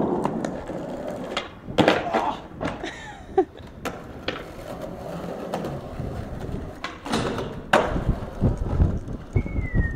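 Skateboard on concrete: wheels rolling and several sharp clacks and knocks of the board, the loudest about two seconds in and about seven seconds in. Near the end comes a quick run of hoofbeats, and a horse's whinny begins just before the close.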